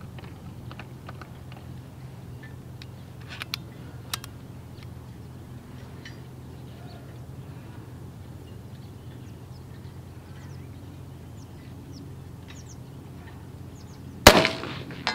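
A single shot from a big-bore .457 PCP air pistol fired offhand near the end: one loud, sharp report with a brief ring-off. Two faint clicks come earlier, about 3 to 4 seconds in, as the pistol is handled, over a steady low background hum.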